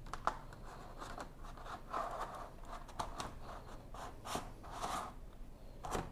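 Carbon fiber grille cover being pressed and shifted by hand against a car's front grille and bumper: scattered light clicks and taps with a few short scrapes.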